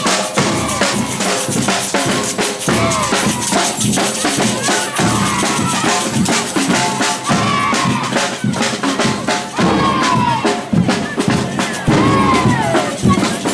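Batucada samba percussion ensemble playing a steady rhythm of bass drums, snare drums and rim hits.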